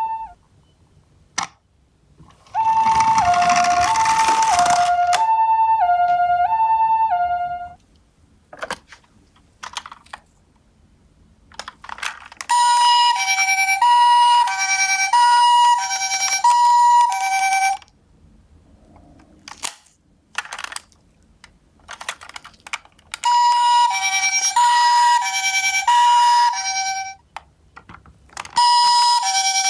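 Toy ambulance minicars' electronic two-tone sirens, alternating high and low about once a second, sounding in three bursts of a few seconds, with a second, higher-pitched two-tone siren joining briefly in the first burst. Short clicks and knocks fall in the gaps between the bursts.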